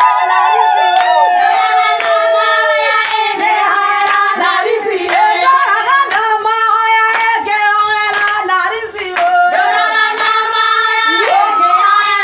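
Several women singing a song together, holding long notes, with hands clapping along throughout.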